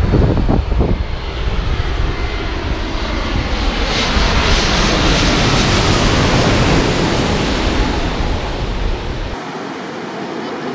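Jet airliner passing low overhead on final approach: its engine noise swells to a loud peak about halfway through and then fades, with wind rumbling on the microphone. Near the end the sound changes abruptly to a quieter, steadier jet noise.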